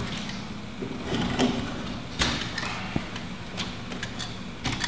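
Utility knife trimming peel-and-stick self-adhered flashing tape at a window sill: light scraping and rustling of the tape, with a few sharp clicks, the loudest a little over two seconds in.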